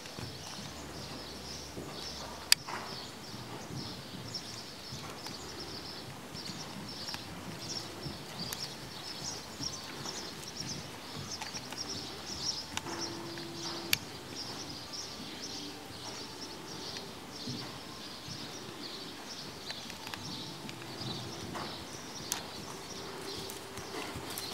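Hoofbeats of a ridden horse trotting on soft arena sand footing, a steady, soft rhythm of footfalls. A few sharp ticks stand out, the loudest about two and a half seconds in.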